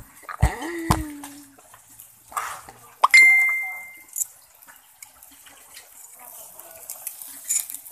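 A single sharp metallic clink about three seconds in, ringing on as one clear high tone that fades over about a second, over a faint hiss and crackle from the charcoal grill with tilapia on it.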